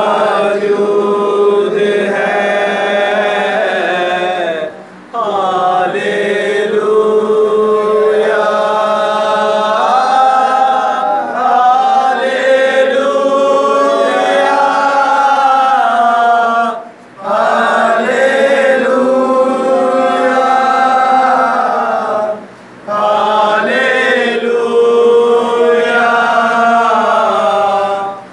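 A group of voices singing a worship song together in long, held phrases, with a few brief breaks between phrases.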